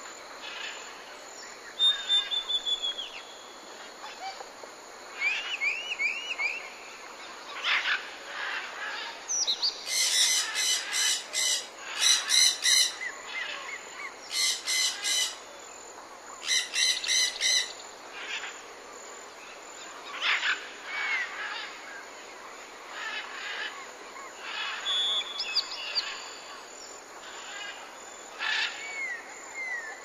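Several birds calling: scattered chirps and short whistled glides, with four brief bursts of a rapid rattling call between about 10 and 18 seconds in.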